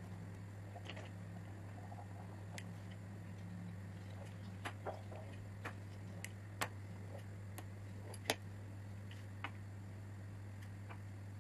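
Axe-shaped dough cutter chopping a slab of soft yeast dough into strips, its blade knocking sharply against a wooden table about a dozen times at uneven intervals, over a steady low hum.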